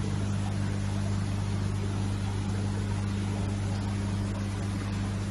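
A steady low mechanical hum, like an engine or motor running, over a constant background noise.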